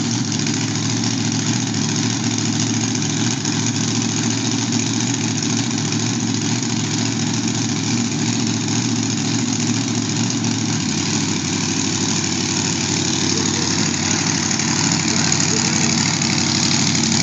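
Drag racing car's engine idling loudly and steadily, with a slight change in its low tone about eleven seconds in and a little louder near the end.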